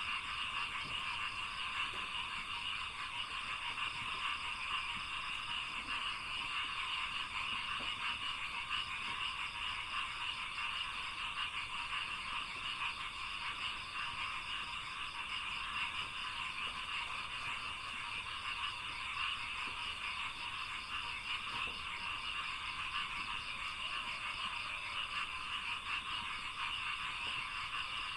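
A dense chorus of many frogs calling together, forming a steady, unbroken din, with a faint fast pulsing trill higher up.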